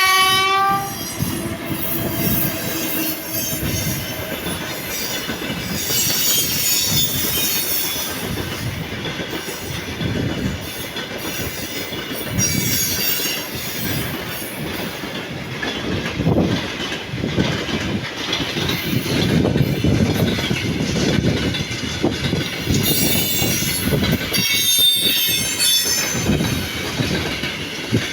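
An electric locomotive's horn ends about a second in. Then a freight train rolls past: wagons rumbling and knocking over the rail joints, with high wheel squeal at intervals.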